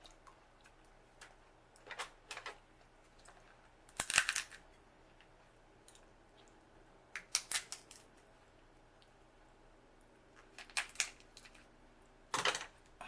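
Close-miked eating of a seafood boil: short clusters of sharp cracking and smacking sounds, about six of them, the loudest about four seconds in.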